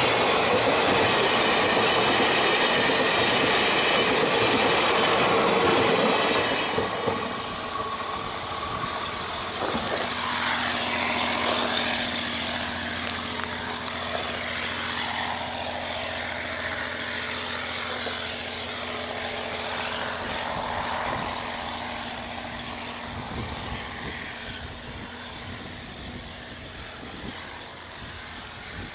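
Freight train of flatcars rolling past at close range, steel wheels running loudly over the rails. About seven seconds in the last car goes by, the sound drops sharply, and the train fades as it rolls away into the distance.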